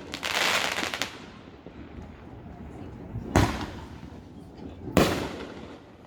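Aerial fireworks: a dense crackling burst in the first second, then two sharp booms about a second and a half apart, each with a trailing rumble.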